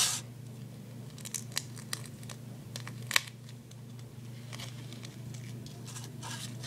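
Duct tape being handled: a short rip at the start, then scattered small crackles and ticks as the strip is laid down and pressed onto the other pieces.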